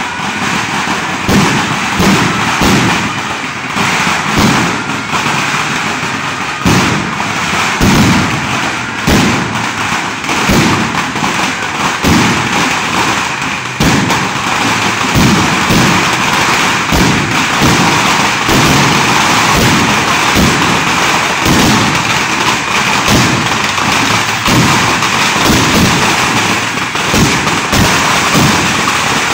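Firecrackers going off in a long, irregular run of sharp bangs and thuds, packed closely together over a continuous din.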